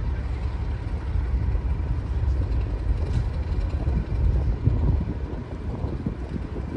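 Diesel locomotive engine running with a steady low rumble, heard from some way off.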